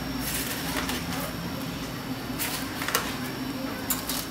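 A metal spoon scraping and tapping against a foil-lined roasting pan a few times while meat juices are spooned over a roasting filet mignon, over a steady low hum.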